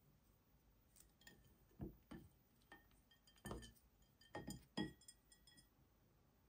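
Faint clicks and clinks of small hard objects being handled and set down, a few with a short high ring, clustered between about two and five seconds in.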